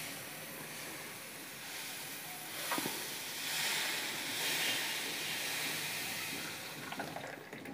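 Turmeric-and-rock-salt water sizzling on a hot iron tawa as it is tipped off into a cup. The hiss swells from about two seconds in and eases near the end, with a light knock about three seconds in.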